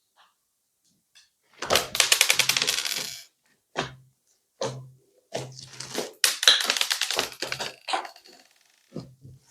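Hands squeezing and kneading crunchy slime, making rapid crackling and popping. Two long runs of dense crackling, one about two seconds in and a longer one from about five seconds, with single pops between them.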